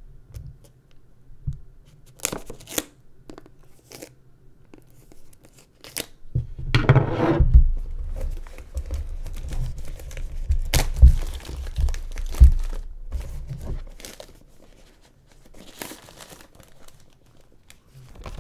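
Clear plastic shrink-wrap being slit and torn off a small cardboard product box, crinkling as it is pulled away. A few sharp clicks about two seconds in, then a longer stretch of tearing and crinkling with a few dull knocks of the box in the middle, dying down near the end.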